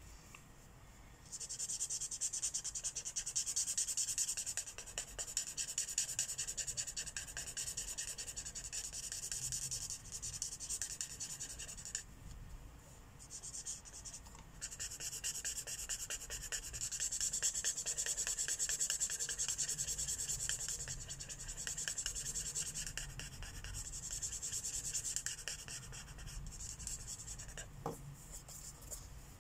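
Felt-tip marker strokes scratching rapidly back and forth across the paper of a coloring book while filling in an area, pausing briefly about halfway through and again near the end.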